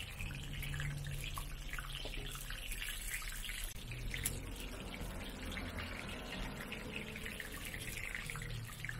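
Hot oil sizzling and crackling around scallion pancakes deep-frying in a wide wok, with a steady low hum underneath and one sharp click about four seconds in.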